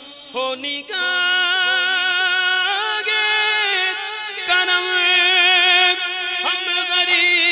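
A man singing a naat into a handheld microphone. After a brief break about a second in, he draws out long, wavering held notes with no clear words.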